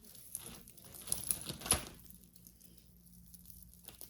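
Costume jewelry being handled and pulled from a plastic bag: crinkling rustle with small clicks of beads and chain, busiest in the first two seconds, then quieter.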